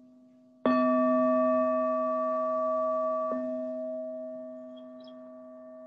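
Singing bowl struck firmly about two-thirds of a second in, over the fading ring of an earlier strike, then ringing on with several overtones and slowly dying away. It marks the close of the meditation.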